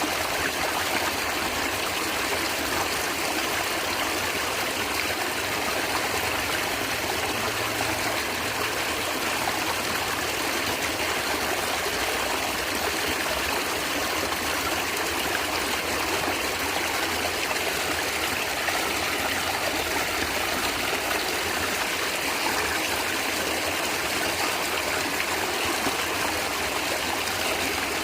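Stream water flowing and gurgling steadily over rocks.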